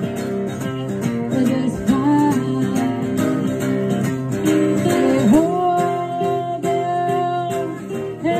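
Live acoustic music: a woman singing over two acoustic guitars. In the second half she holds a long note.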